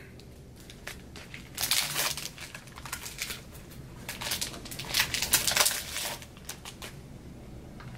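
Crinkling and rustling from a basketball card pack and its cards being handled, in several short bursts; the loudest come about two seconds in and about five seconds in.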